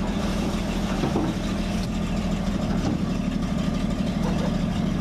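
Vehicle engine idling steadily, an even low throb.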